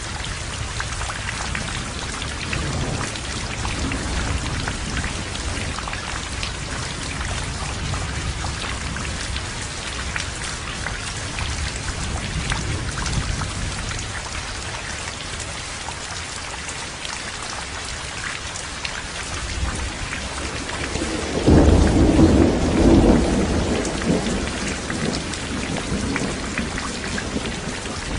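Heavy rain falling steadily in a thunderstorm. About three quarters of the way through, a loud rumble of thunder breaks in and rolls away over a few seconds.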